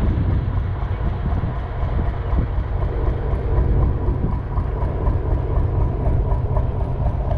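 A steady, fairly loud low rumble that does not change.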